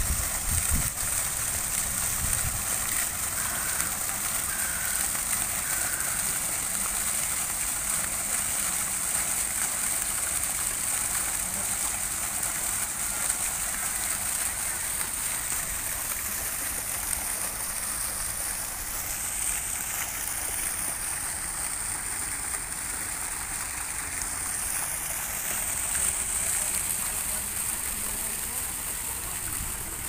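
Water running steadily over a small artificial rock cascade and splashing into a shallow pond, a continuous trickling murmur.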